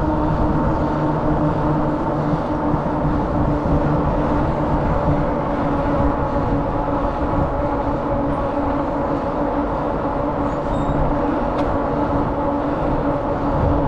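Steady road noise from a bicycle riding on asphalt: tyres humming on the pavement with wind rushing over the microphone, a constant drone.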